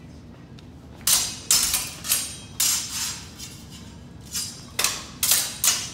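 Steel longswords clashing in a fencing exchange. After a quiet first second come about eight sharp, ringing blade-on-blade strikes in two quick flurries, the second starting a little over four seconds in.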